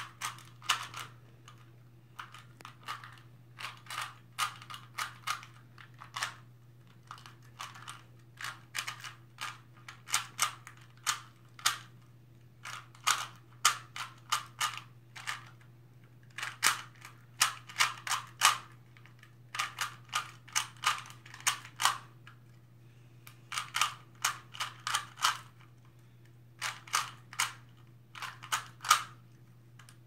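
3x3 Rubik's Cube being turned quickly by hand: plastic layers clicking and clacking in fast runs of turns, several a second, with short pauses between runs.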